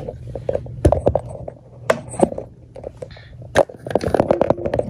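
Handling noise from the camera being moved and repositioned: a few sharp knocks and bumps against the microphone, with fleece fabric rubbing and rustling on it.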